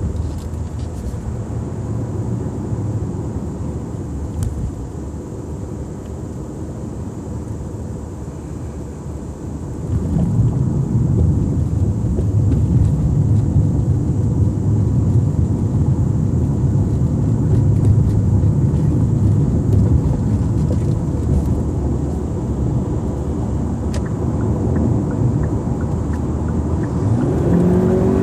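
Kia Optima 2.0T's turbocharged four-cylinder engine running under way, fitted with an Injen short ram intake and heard from inside the cabin. It is mixed with a low road rumble, gets louder about ten seconds in, and its revs rise near the end.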